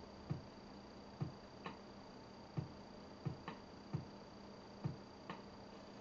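Faint, irregular clicks and light knocks, roughly one or two a second, over a quiet steady hum and a thin high whine.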